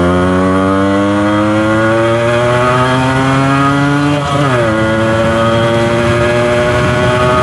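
Yamaha RX100's two-stroke single-cylinder engine running under way, its pitch climbing steadily as it accelerates for about four seconds. The pitch then dips and holds nearly steady.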